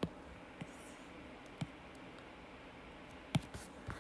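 Four short, sharp clicks from an input device used to annotate the screen, the loudest about three seconds in, over faint room tone.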